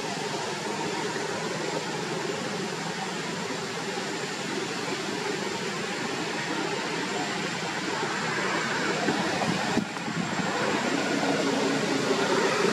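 Steady outdoor background noise: a constant hiss with no clear single source. It breaks off briefly about ten seconds in and is a little louder after the break.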